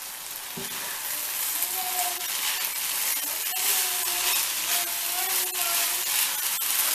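Zarda rice sizzling in a nonstick frying pan, the sizzle growing louder after about a second. A silicone spatula stirring the rice makes scattered clicks and scrapes against the pan.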